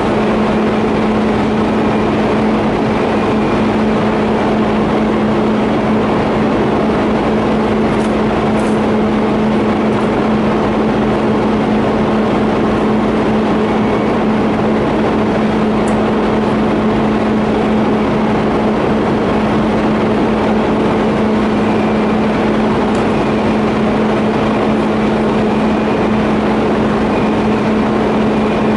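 TIG welding equipment running steadily: an unbroken hum with a hiss over it, and a few faint ticks.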